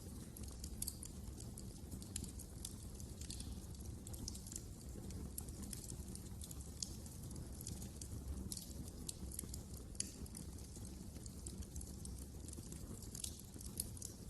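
Wood fire crackling in a fireplace: a steady low rumble of flames with irregular sharp pops and snaps, a few louder ones standing out.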